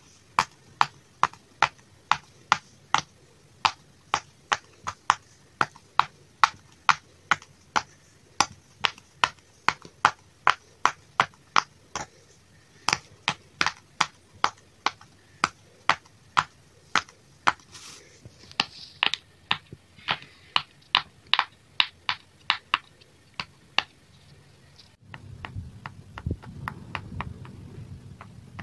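Bubbles of a large square silicone pop-it fidget toy pressed one after another by finger, each giving a sharp pop, about two a second. Near the end the pops stop and a low rumbling noise takes over.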